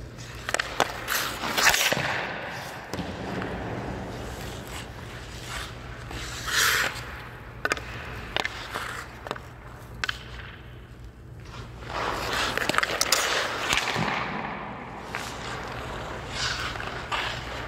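An ice hockey goalie's skate blades scraping and pushing across the ice in several bursts during push-outs and shoot-drag slides. Sharp clacks of stick, puck and pads are scattered through, over a steady low hum.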